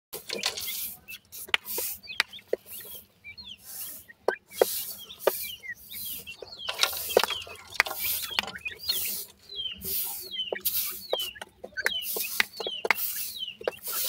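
Black francolin chicks peeping with many short high chirps while they scratch and dust-bathe in dry soil. Repeated rustling scrapes of kicked-up dirt are mixed with sharp pecking clicks.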